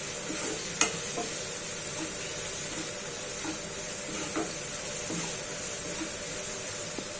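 Garlic-ginger paste and ground spices sizzling in hot oil in a pan while a spatula stirs and scrapes them. One sharp tap about a second in.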